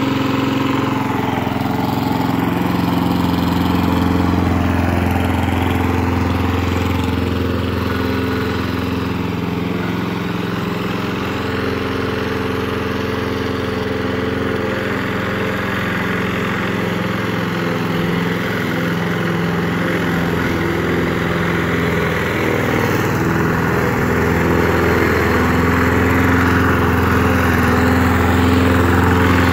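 Small single-cylinder lawn mower gasoline engine running steadily on a homemade remote-controlled mower as it drives across the grass, a continuous even engine hum with slight shifts in pitch.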